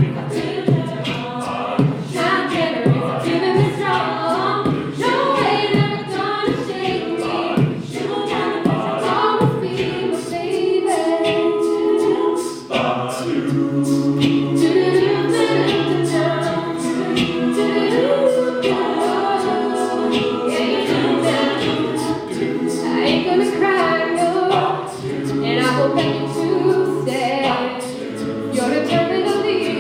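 An a cappella group singing in close harmony over a sustained low bass line, with a steady, sharp percussive beat in the voices.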